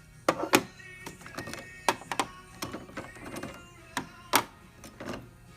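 Several sharp plastic clicks and knocks from handling packs of ink cartridges, spaced irregularly.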